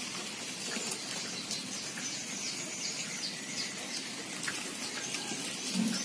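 Small caged songbird giving a run of short, high, falling chirps, about three a second, over a steady hiss.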